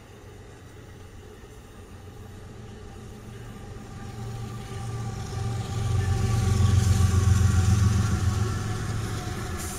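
CSX freight train's diesel locomotives approaching and passing close by: a low engine rumble builds over the first six seconds, is loudest from about six to eight and a half seconds, then eases, with a hiss of wheels on rail coming in as they go by.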